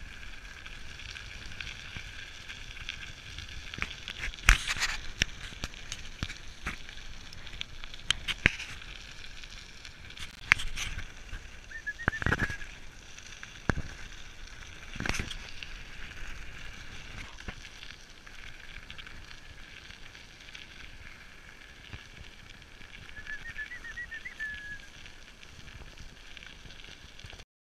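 Wheels rolling fast over a loose gravel track: a steady crunching hiss with many sharp clicks and a few louder knocks.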